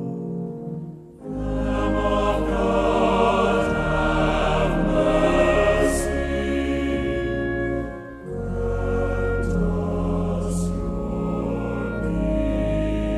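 Choir singing slow sacred music in sustained phrases, with a short break about a second in and another about eight seconds in.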